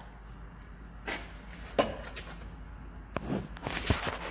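A few light knocks and clicks of objects being handled, one about a second in, another near two seconds, and a cluster towards the end, over a low steady hum.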